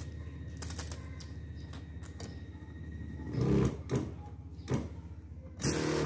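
Electric 16-litre knapsack sprayer's pump buzzing in short spurts as it sprays a fine mist, over a steady low hum. The loudest spurts come about three and a half seconds in and again just before the end.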